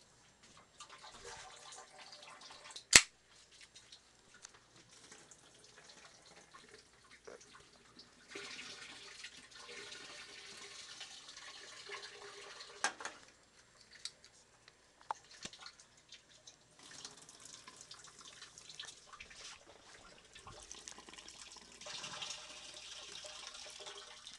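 Water running from a tap into a sink in three spells, with a few sharp knocks against the sink, the loudest about three seconds in.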